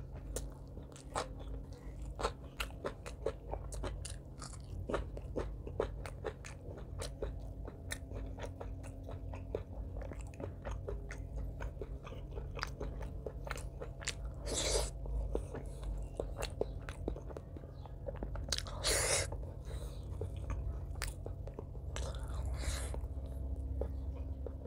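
Close-miked eating sounds: steady chewing with wet mouth clicks and smacks as a mouthful of rice and curry is eaten by hand. Three louder crunchy bites come a little past the middle and near the end.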